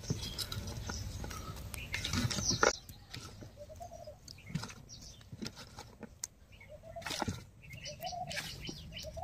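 Birds chirping with short repeated calls, over soft rustling and light thuds as cut pieces of aloe vera are dropped into loose potting soil; the rustle is loudest about two seconds in.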